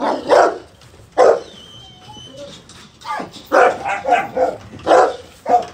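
Dogo Argentino dogs barking: two barks at the start, a pause of a second and a half, then a quicker run of barks.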